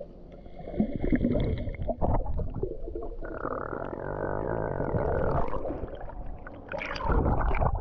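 Muffled underwater water noise from an action camera held by a swimmer: low rumbling and bubbling, with a steady hum for a couple of seconds from about three seconds in, then a louder surge of splashing water near the end as the camera comes up to the surface.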